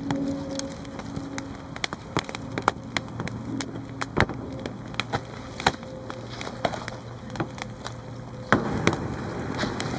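Dry wood cracking and snapping in irregular sharp pops of varying loudness, the loudest about four and eight and a half seconds in.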